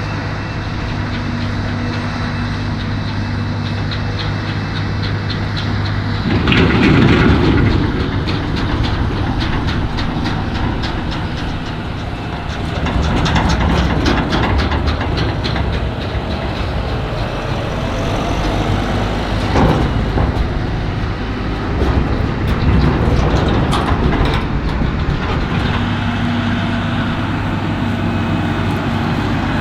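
Heavy maize-harvest machinery, the forage harvester and tractors, with engines running loud and steady. About six seconds in, a noisier stretch with repeated rattling clatters sets in, and the plain engine drone returns near the end.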